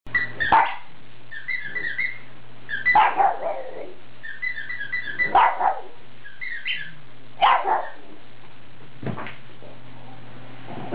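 A pug barking in five loud, sharp bursts about two seconds apart, the last one weaker, with short high squeaky sounds between them; she is riled up over her squeaky toy.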